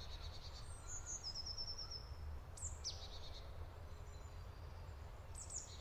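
Faint forest ambience with small birds chirping. There is a short rapid trill about a second in, a couple of quick downward chirps around three seconds, and more chirps near the end, over a steady low rumble.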